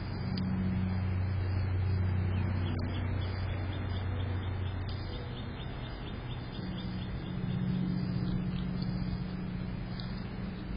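Low, steady hum of a motor vehicle's engine running in the background, louder in the first half and easing off after about five seconds. Faint rapid ticking sits over it for a few seconds.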